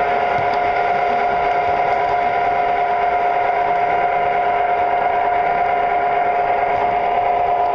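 Model train running on its track, heard from a car of the train itself: a steady high whine of the motor and gears over the even rolling noise of wheels on rails.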